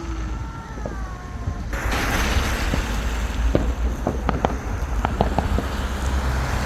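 Fireworks: a sudden hiss about two seconds in, then scattered crackles and pops, over a low rumble of wind on the microphone.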